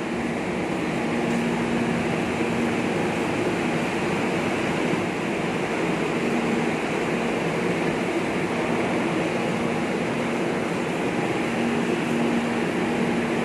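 Steady hum and hiss of a metro train at a station platform, with a low hum that fades in and out a few times.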